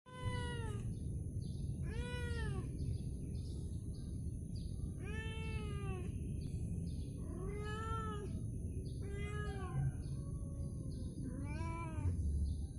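Domestic cat meowing six times. Each meow is about a second long and rises then falls in pitch.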